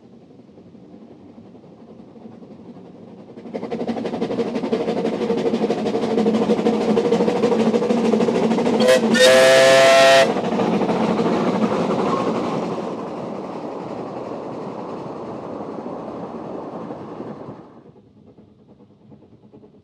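Two 2 ft gauge steam locomotives double-heading a passenger train, running past close by. About halfway through the whistle sounds a short toot and then a blast of about a second. The train noise drops away sharply near the end.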